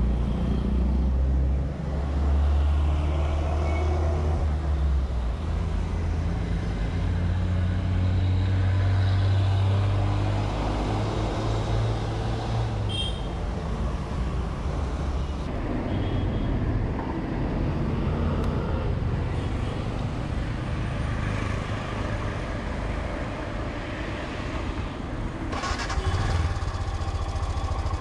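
Street traffic with a motorcycle engine running steadily at idle underneath, the low hum of the Royal Enfield Himalayan's single-cylinder engine. The sound changes about two seconds before the end.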